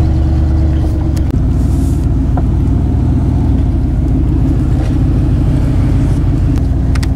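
Ford F-150 pickup driving, heard from inside the cab: a steady low drone of engine and road noise. The engine note drops slightly just over a second in.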